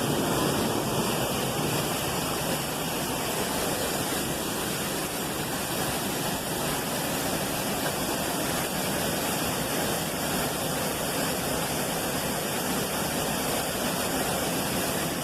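A waterfall's falling water making a steady, loud rush.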